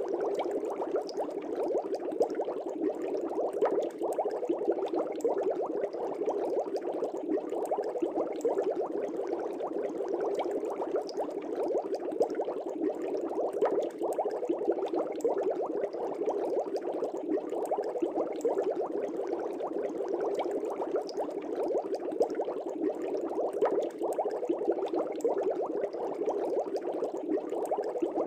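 Air bubbles from an aquarium bubbler rising and breaking at the water surface in a fish tank, a steady dense bubbling with small pops scattered through it.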